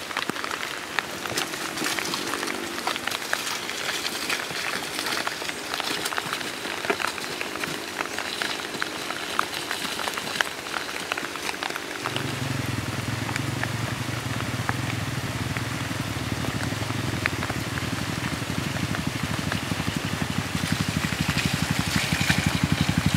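Rain pattering, with many sharp drop clicks. About halfway through, a dirt bike's engine comes in low and steady at low revs and keeps running.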